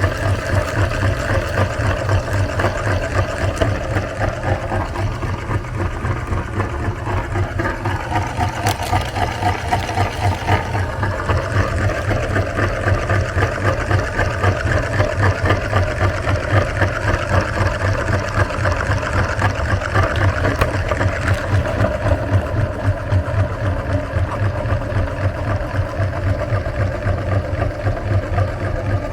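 Meat grinder's motor running steadily with a fast, even pulsing hum as it grinds ice cream.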